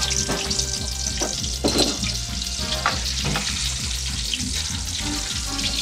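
Batter-coated shrimp deep-frying in hot oil, a steady sizzle broken by the clatter of utensils being stirred in the pan.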